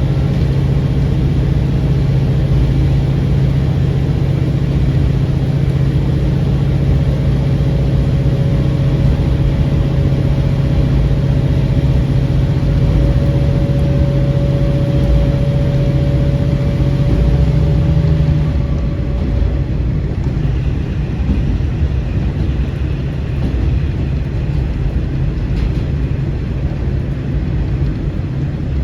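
KiHa 40-series diesel railcar running under power, its engine a steady drone over the rumble of the wheels on the rails. About 17 seconds in the engine note rises a little, then drops away about a second later, leaving the wheel and rail rumble as the railcar coasts.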